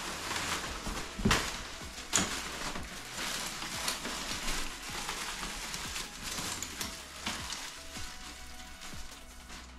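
Plastic packaging crinkling and rustling as wrapped costume parts are handled and pulled out of a cardboard box, with two thumps about a second and two seconds in.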